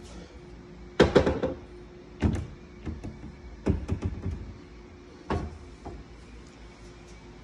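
Kitchen pantry cabinet doors being opened, giving a run of sharp knocks and clatters from the doors and their knobs. The loudest clatter comes about a second in, with single knocks over the next few seconds, over a faint steady hum.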